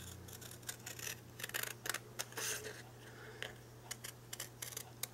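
Scissors cutting a paper card: a string of short, irregular snips.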